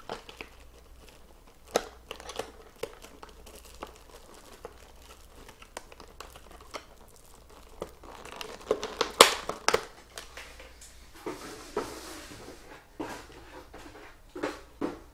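Packaging on a trading-card box crinkling and rustling as it is handled and opened by hand, with scattered small clicks and a louder spell of crinkling about nine seconds in.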